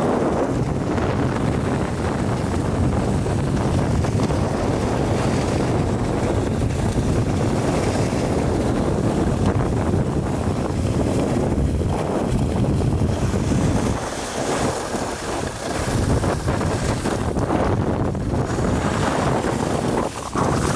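Wind rushing and buffeting over the microphone of a camera carried by a moving skier, a steady low rumble that eases briefly about two-thirds of the way through.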